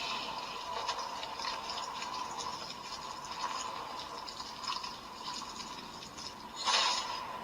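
CSM Century King Sun Driver toy belt playing a sound effect through its small speaker: the Creation King's heart being torn out, with rattling and clanking as it rolls back into metal racks. A louder hit comes near the end.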